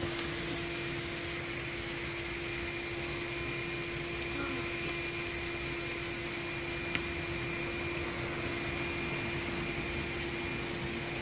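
A steady machine hum with a constant pitched tone, and a faint click about seven seconds in.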